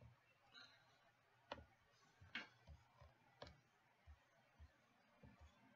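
Near silence with a few faint, irregular clicks, typical of a computer mouse and keyboard being used to set up a randomizer.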